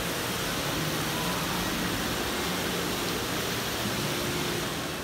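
Steady hiss of water splashing in an indoor fountain's basin, heard over the hum of a large arcade hall.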